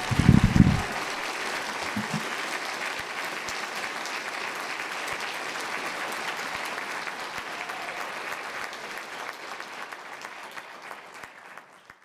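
Audience applauding steadily after a talk, with a few low thumps in the first second; the clapping fades out near the end.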